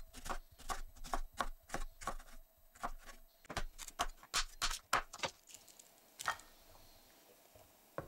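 A chef's knife slicing through fresh ginger root and a lemongrass stalk onto a bamboo cutting board: a steady run of sharp knife strikes, about three a second. It stops a little after five seconds in, with one last knock about a second later.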